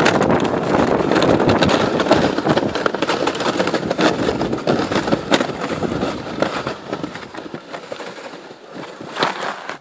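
Flexible Flyer sled's steel runners scraping and crackling over icy, crusted snow as it slides downhill. The sound fades steadily as the sled slows, with a brief louder scrape near the end.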